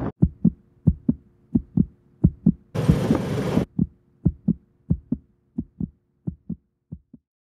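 Heartbeat sound effect: pairs of dull thumps in a lub-dub rhythm that slow and fade out about seven seconds in, over a faint steady hum. About three seconds in, a short burst of hissing noise cuts across the beats.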